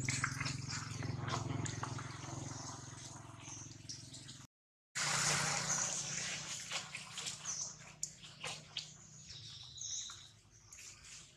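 Dry leaf litter rustling and crackling as macaques shift about in it, over a steady low hum, with short high chirps in the second half. The sound cuts out completely for about half a second partway through.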